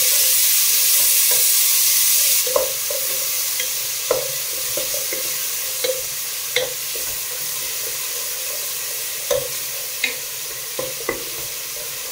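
Chopped tomatoes sizzling as they fry in hot oil with onions and ginger-garlic paste in a pot, stirred with a wooden spoon that knocks against the pot now and then. The sizzle is loudest for the first couple of seconds, just after the tomatoes go in, then eases to a steadier fry.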